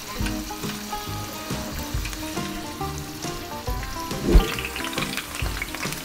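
Potato slices frying in hot olive oil in a stainless steel pan, a steady sizzle and crackle, with one sharp thump about four seconds in, over background music.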